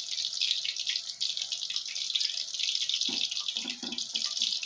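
Flour-coated chicken deep-frying in hot oil in a wok: a steady crackling sizzle, with a few soft knocks about three seconds in.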